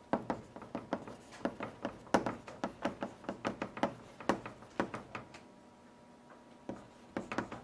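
Chalk tapping and scraping on a blackboard during handwriting: a quick, uneven run of short clicks, one per stroke, that stops for about a second near the end and then starts again.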